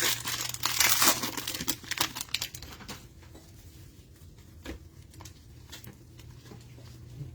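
Cellophane wrapper of a Mosaic football cello pack crinkling and tearing as the pack is opened, for about three seconds, then a few faint clicks and taps.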